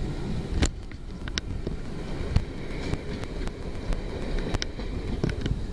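A train rumbling past, with scattered sharp clicks at irregular intervals, and wind buffeting the microphone.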